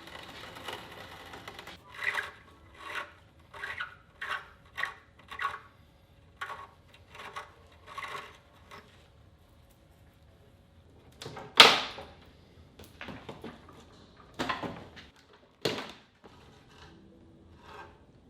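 Hand tools working on the rusted suspension bolts under the car: a run of about ten short metallic strokes, then a few sharp knocks, the loudest about twelve seconds in.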